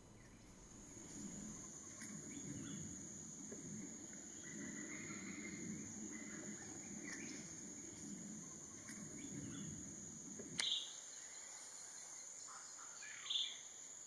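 Faint forest ambience: a steady high-pitched insect whine, with two short bird chirps, one about ten and a half seconds in and one near the end.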